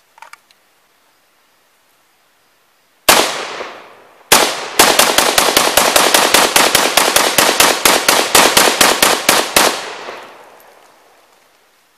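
WASR-10 AK-pattern rifle in 7.62×39 firing: two single shots about a second apart, then a rapid bump-fired string of about two dozen shots at roughly five a second. The echo fades after the last shot.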